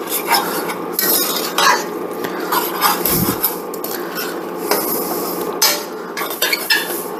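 A metal utensil scraping and clinking against a pan while stirring a chicken and vegetable stir-fry, working the browned bits up from the bottom after sauce has gone in. Irregular scrapes and knocks, several each second.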